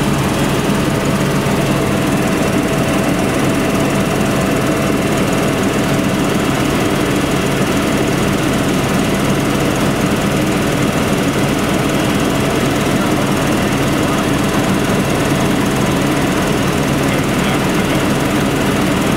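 Aircraft engine and spinning blades droning steadily, heard from inside the cabin, with a low hum and a faint higher tone over it.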